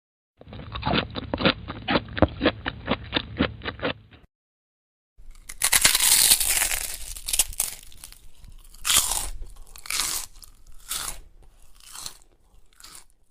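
Two bite sound effects of crunchy food being chewed. The first is a duller run of quick chewing crunches, about four a second for nearly four seconds. After a short gap, a loud crisp bite is followed by slower chewing crunches, about two a second, that fade away.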